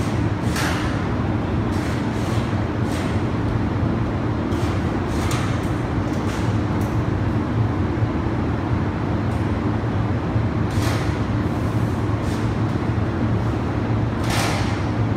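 Steady, loud low machine drone with a faint steady tone above it, broken every few seconds by short bursts of high hiss.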